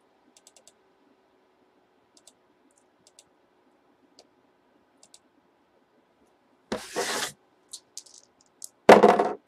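Two dice clattering as they are rattled and rolled onto a tabletop: a short clatter about seven seconds in and a louder one near the end. Before that, a few faint clicks.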